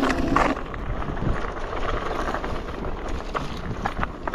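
Wind buffeting the microphone over a rough, steady rumble of an electric scooter rolling along an uneven path, with a few short knocks.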